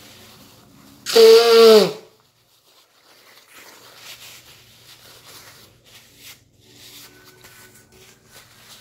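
A man blowing his nose hard into a paper towel: one loud honk of about a second, its pitch dropping at the end. It is followed by softer rustling and rubbing of the paper as he wipes his face. His nose is running from the heat of a Carolina Reaper chip.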